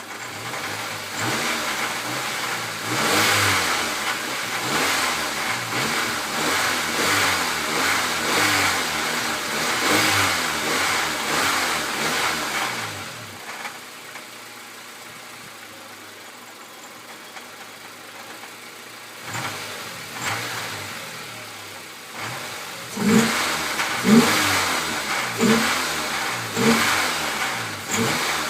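Honda D14 SOHC four-cylinder engine of a 2001 Civic being revved repeatedly, settling to a quieter idle about halfway through, then blipped sharply several times near the end. The engine has a knocking rattle at low revs that the owner hopes is coming from the alternator or its pulley.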